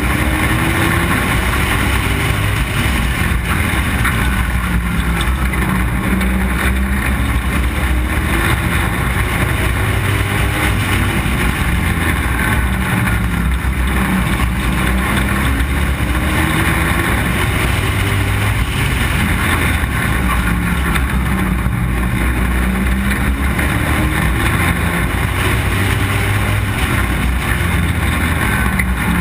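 Street stock race car engine running hard at race pace, heard from a camera mounted on the car, climbing in pitch again and again as it accelerates, with other race cars running close around it.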